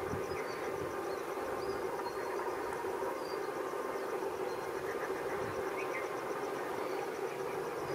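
Insects chirping in a fast, even pulse over a steady low hum, with a few short bird chirps scattered through.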